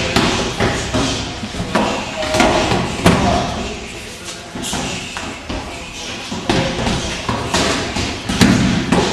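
Punches and kicks landing on focus mitts and kick shields, several pairs training at once: an irregular run of sharp smacks and thuds in a large, echoing hall.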